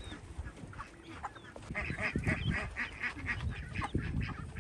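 Penned ducks and other poultry calling, with a quick run of duck quacks, about four or five a second, starting a little under two seconds in; scattered low thumps.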